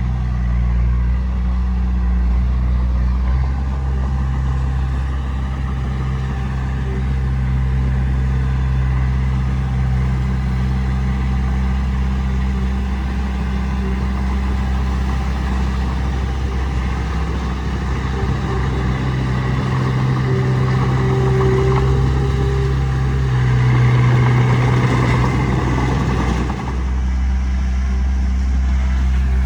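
Heavy diesel engine of earthmoving machinery running steadily with a low hum. Near the end it grows louder and rougher for a few seconds, then drops back abruptly to its steady note.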